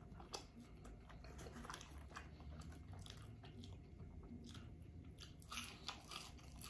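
Faint close-miked chewing of food: soft, wet mouth clicks and smacks at an uneven pace, thicker near the end as a ranch-dipped French fry goes into the mouth.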